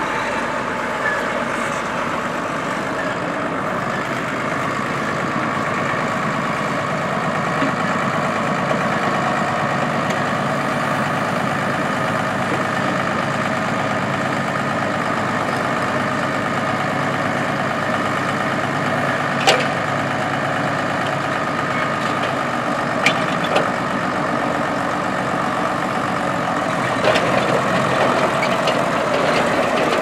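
Case 1070 Agri-King tractor's six-cylinder diesel engine running steadily while its front loader and hay grapple work a stack of small square hay bales. A few sharp knocks come a little past the middle and again near the end.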